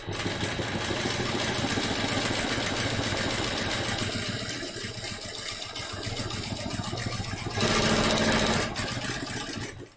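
Home sewing machine stitching continuously during free-motion quilting, its needle rattling rapidly. It runs louder with a steady hum for about a second near the end.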